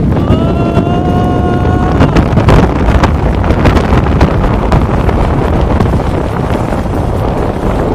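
Freefall wind rushing over the camera microphone during a tandem skydive, a loud steady buffeting. Near the start a long held yell rises slightly and lasts over a second.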